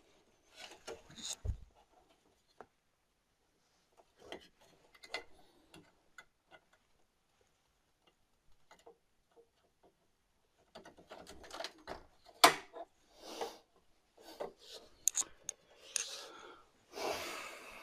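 Hands working inside a desktop PC case while a drive is swapped: scattered clicks, taps and rubbing of the drive, cables and case parts. Sparse at first, the handling grows busier in the second half, with one sharp click about twelve seconds in and a short scrape near the end.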